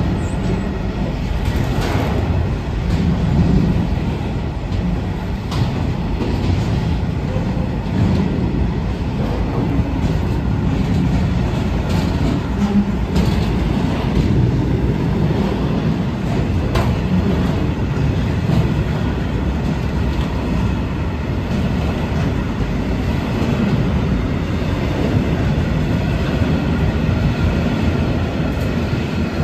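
Freight train of red DB Cargo HRA bogie hopper wagons rolling past close by: a steady loud rumble of wagon wheels on the rails, with occasional sharp clicks as wheels cross rail joints.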